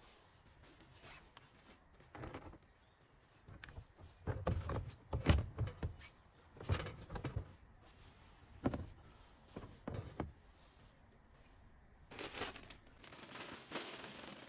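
Handling noises at a plastic chicken coop as its roof is taken off and pine shavings are added: scattered knocks and thumps, several in a row from about four seconds in, then a steady rustling hiss from about twelve seconds.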